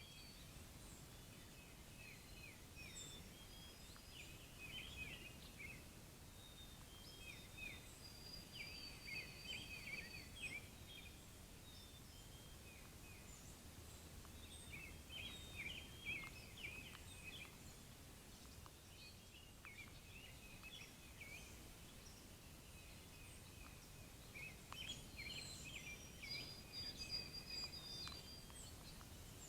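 Wild birds chirping and singing faintly, with clusters of quick chirps and a few thin, held whistles coming every several seconds over a low steady background hiss.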